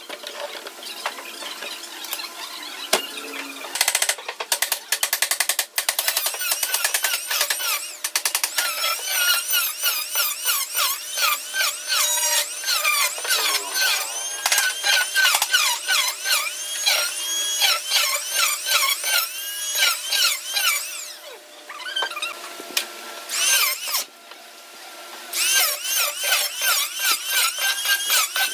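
An electric hand planer shaves a wooden tabletop, its whine sweeping up and down in quick repeated arcs as it cuts on each pass, with two short breaks in the second half. The first several seconds hold sharp clicks and knocks from handling the clamps and the work.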